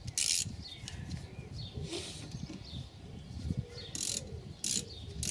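Ratchet wrench with a 12 mm socket clicking in a few short bursts as a brake caliper bolt is wound in, with low knocks of handling in between.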